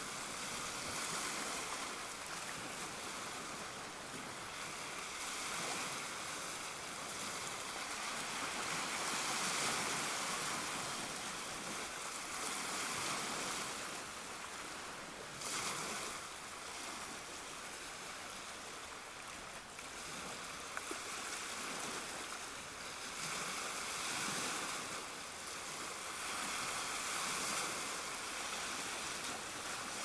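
Small waves of a calm sea washing and splashing against shoreline boulders: a steady hiss of surf that swells and eases every few seconds.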